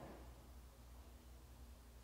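Near silence: a faint steady low hum, with one brief soft swoosh right at the start.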